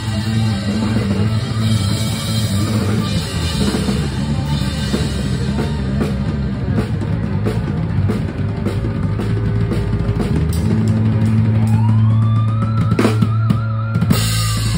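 Live rock band with a drum kit close by, the drums and cymbals hitting over sustained bass notes. Near the end a high held note glides up and wavers as the song builds to its close.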